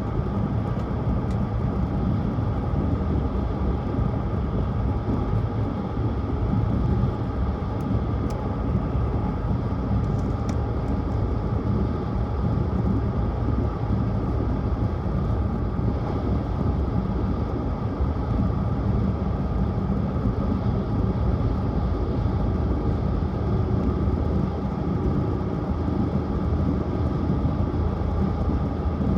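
Tohoku Shinkansen train running at speed, heard from inside the car: a steady, heavy rumble of wheels on rail and running noise, with a few faint ticks about eight and ten seconds in.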